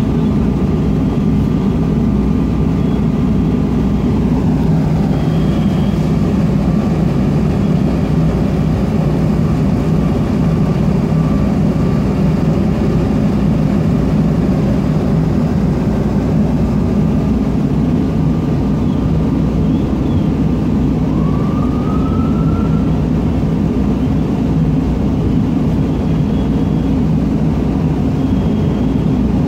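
Fire trucks' engines running at a fire scene, a loud, steady low rumble, with a brief rising tone about two-thirds of the way through.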